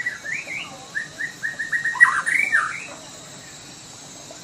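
White-rumped shama (Sumatran murai batu) singing a quick run of varied whistled notes and short sweeping phrases, loudest about two seconds in, then falling silent at about three seconds.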